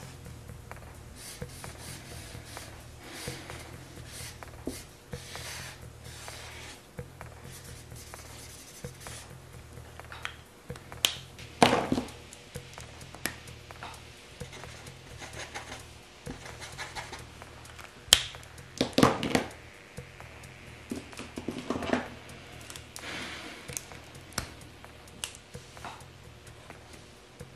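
Marker tip rubbing and scratching on paper in short colouring strokes, over quiet background music. A few louder knocks and sharp clicks stand out, about 11 seconds in and again around 18 to 19 seconds, as markers are handled and swapped.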